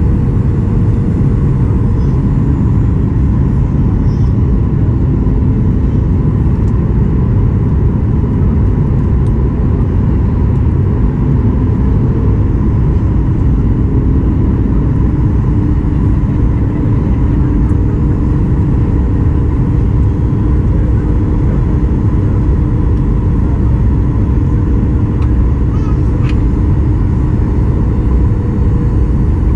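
Steady cabin noise inside a Boeing 737 MAX 8 descending on approach: a loud, even low rumble of airflow and the CFM LEAP-1B engines, with a faint steady hum.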